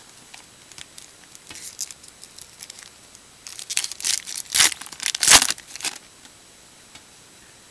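The foil wrapper of a 2014 Topps Series 1 baseball card pack being torn open and crinkled by hand. Light crackles build into a run of loud tearing and crinkling near the middle, which stops about six seconds in.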